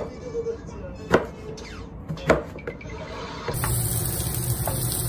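Kitchen knife chopping eggplant on a cutting board, three sharp chops about a second apart. About three and a half seconds in, eggplant pieces start sizzling in hot oil in a wok, a steady hiss.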